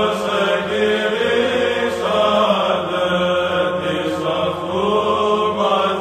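Byzantine chant sung by male voices: a melody moving above a steady held drone (the ison).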